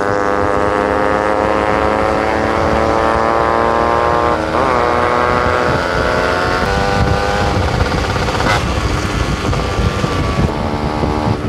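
Yamaha RX 135 two-stroke single-cylinder motorcycle engine running under way. Its pitch climbs steadily for the first few seconds, breaks briefly and resettles about four and a half seconds in, then holds fairly steady.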